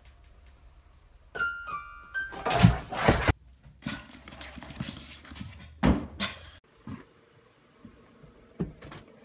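A cat landing on a digital piano: a few short piano notes sound about a second and a half in, followed by a loud thump. Further scattered thumps from cats jumping and landing come later.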